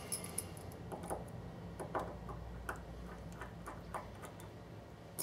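Small screwdriver turning screws into the chassis of a 00 gauge model locomotive: faint, irregular small clicks and ticks.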